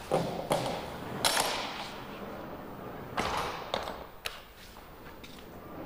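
Irregular knocks and clunks with a short rushing burst about a second in, then sharp metallic clicks a few seconds later, over a low steady hum: an insulated cold-room door and its metal latch being handled.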